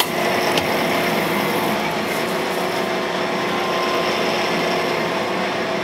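Cam grinding machine running, its grinding wheel spinning with a steady motor hum. A high hiss of grinding and coolant drops away right at the start, and a single click follows about half a second in.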